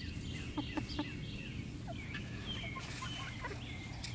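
Cochin hens clucking softly while foraging, a few short calls about a second in, with short high chirps scattered through.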